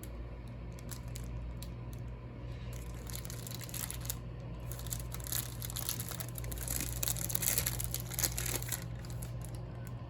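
Crinkling and rustling, busiest in the middle seconds, over a steady low hum.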